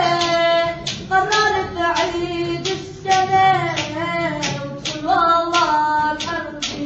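A child singing an Arabic song, drawn-out melodic phrases, over sharp rhythmic beats about twice a second.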